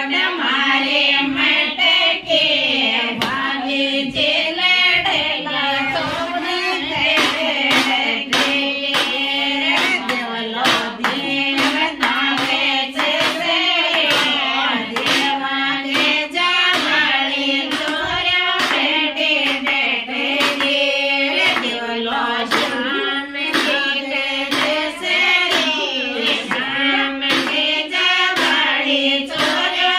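Women singing a Rajasthani folk wedding song (geet) in chorus, devotional verses calling on the gods and goddesses, with a wavering melody over a steady held low note. Frequent short sharp taps or claps are scattered through the singing.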